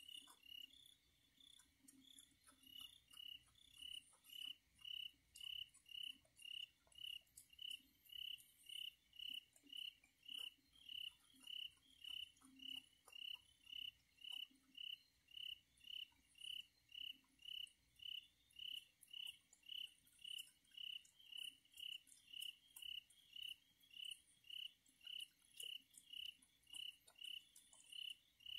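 A cricket chirping steadily in an even rhythm of short high chirps, about two a second, settling into the regular beat a couple of seconds in. Faint scattered clicks run underneath.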